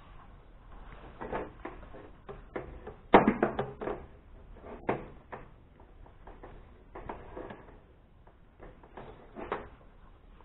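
Plastic housing parts of a Braun juice extractor being handled and taken off on a table: a run of irregular clicks and knocks, the loudest cluster about three seconds in and another sharp knock about five seconds in. The motor is not running.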